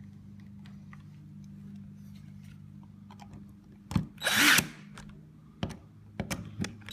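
Power drill running in one short burst, about half a second long, some four seconds in, driving screws during lock installation. Scattered small clicks and knocks of handled parts come before it, over a steady low hum.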